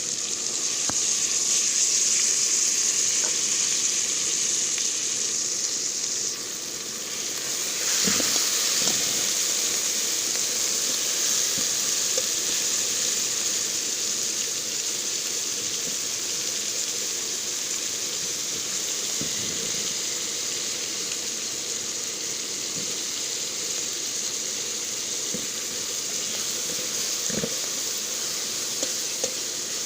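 Onion, tomato and green-chilli masala frying in a pot with a steady sizzle. The sizzle drops briefly about six seconds in and picks up again around eight seconds, with a few faint knocks scattered through.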